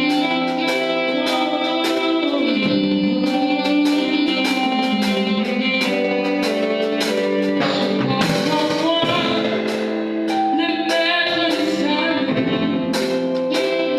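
A song: singing over instrumental backing with a steady beat.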